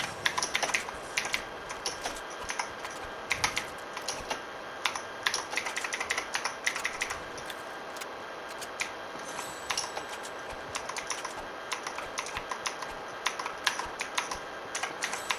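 Computer keyboard keys clacking in quick, irregular flurries as a PC game is played, sparser for a few seconds in the middle.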